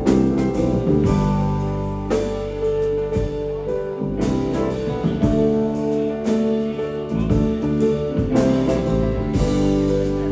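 Live band playing: sustained instrumental chords with drum hits.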